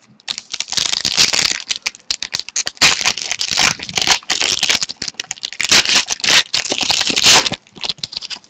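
Foil wrapper of a 2013-14 Panini Totally Certified hockey card pack being torn open and crinkled by hand, a dense crackling that stops near the end.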